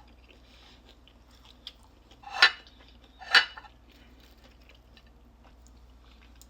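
Two loud crunches about a second apart as crispy fried chicken is bitten into, with faint chewing clicks around them.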